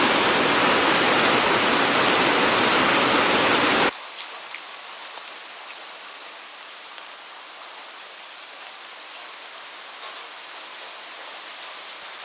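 Steady, dense rain that cuts off suddenly about four seconds in. Lighter rain follows, with individual raindrops ticking now and then.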